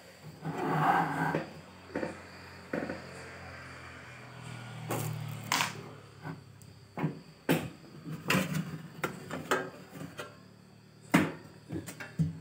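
Hands handling the amplifier's metal cabinet while its top cover is taken off: a string of separate sharp clicks and knocks, the loudest about eleven seconds in.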